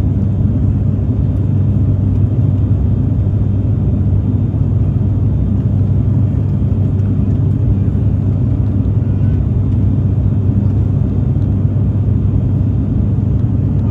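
Cabin noise inside an ATR 72-600 turboprop airliner in flight: the steady, deep drone of its Pratt & Whitney PW127M engines and propellers, unchanging throughout.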